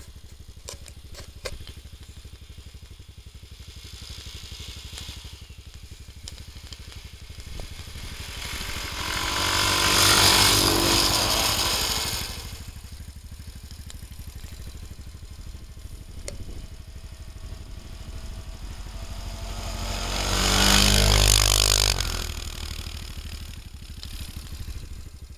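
Engines of two small off-road vehicles driving past one after the other. Each grows louder and then fades, the first about ten seconds in and the second about twenty-one seconds in, with a faint engine drone in between.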